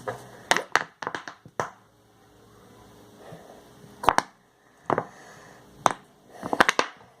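Sharp clicks and knocks of plastic containers and utensils being handled and set down on a table, some single and some in quick clusters.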